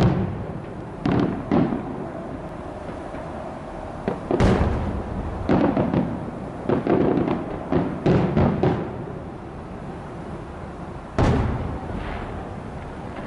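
Fireworks shells bursting overhead in a series of booms: a few single bangs, a quick cluster of bangs in the middle, and one last big boom near the end, each fading away after it.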